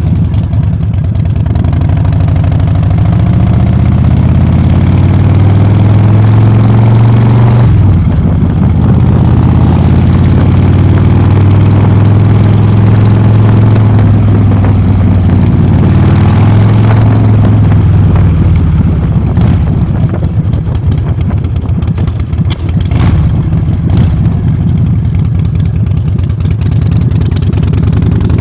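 Motor scooter engine running loud while riding, its pitch climbing for the first several seconds, dropping sharply about eight seconds in, then holding steady before easing lower for the rest.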